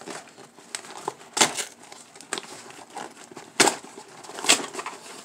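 Duct tape being peeled off a cardboard mailer: irregular crackling rips and crinkling of the card, with three sharper, louder rips among them.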